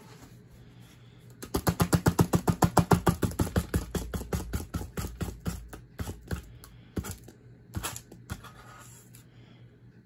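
A 1998 Harbor Breeze Empire/Plantation ceiling fan coasting down with the power off. About a second and a half in, a fast run of clicks starts, then slows and thins out into scattered ticks as the fan loses speed.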